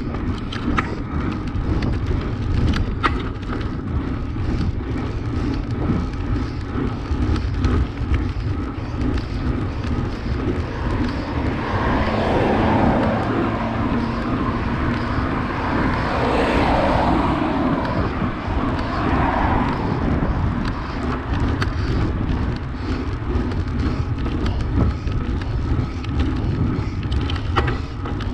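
Steady low rumble of wind and tyre noise on a road bike's handlebar camera, with occasional sharp knocks from the rough road surface. About halfway through, a car's road noise swells and fades as it goes past.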